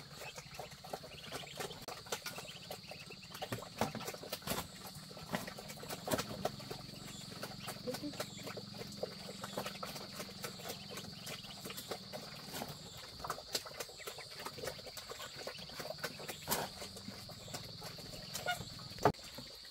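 Irregular small clicks and taps of grain being pecked by ducklings and worked by hand on a feed board, over a steady high-pitched insect drone. One sharper tap comes near the end.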